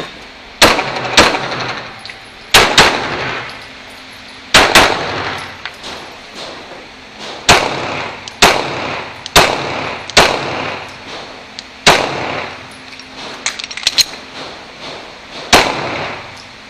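A Glock 17 9mm pistol firing a string of shots, many as quick pairs, each crack followed by a reverberant tail from the indoor range.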